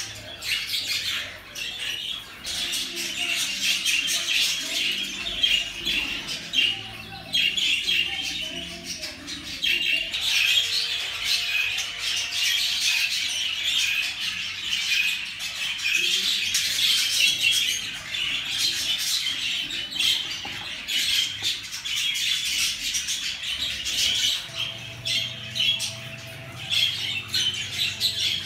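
Budgerigars chattering: a continuous, dense warble of chirps and squawks, without a break.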